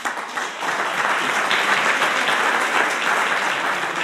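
Audience applauding, breaking out suddenly and building over the first second, then holding steady.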